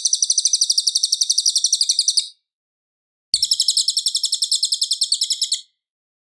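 Cililin bird song: a loud, high, rapid trill of evenly repeated notes, about a dozen a second, in two bursts of a little over two seconds each with about a second of silence between them.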